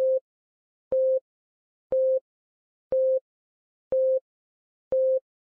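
Six short electronic beeps, one each second, all on the same steady mid-pitched tone with silence between them.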